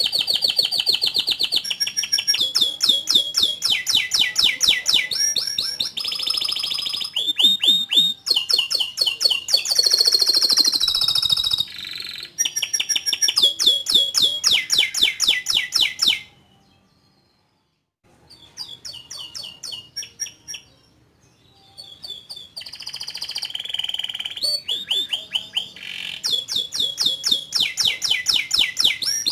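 Domestic canary singing a long song of chirps and fast rolling trills, phrases of rapidly repeated high notes following one another. It breaks off for about two seconds just past halfway, then picks up again.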